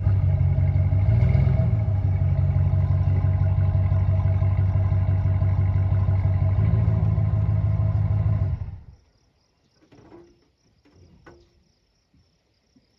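A vehicle engine running steadily, then cutting off suddenly about nine seconds in; a few faint clicks follow.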